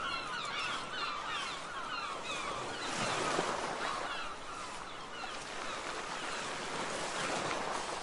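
A flock of gulls calling over one another: many short, overlapping calls with a steady rushing noise beneath, and a louder rush of noise about three seconds in.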